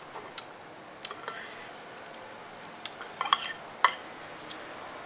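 Metal fork clinking and scraping against a plate while twirling instant noodles: scattered sharp clicks, with a small cluster a little past three seconds in.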